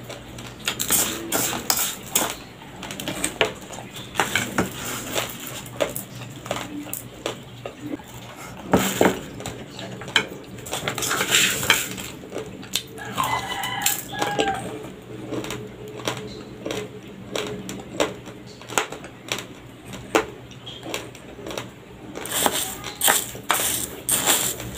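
Raw, uncooked white rice being chewed, a dense crackle of sharp crunches as the hard grains break between the teeth. Near the end a wooden spoon scoops through raw rice in a plastic bag, and the grains rattle.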